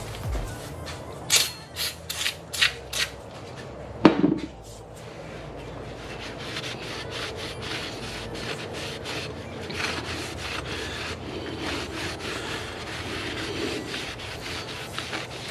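Five short hissing sprays of aerosol brake cleaner, then a metallic clank with a brief ring about four seconds in. After that comes steady scrubbing as a paper shop towel is rubbed around the inside of a go-kart clutch bell to clean off old oil.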